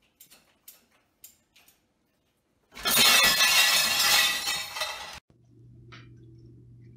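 Faint clinks of crockery in an open dishwasher rack, then, about three seconds in, a loud crash of dishes falling onto a tile floor and breaking, lasting about two seconds.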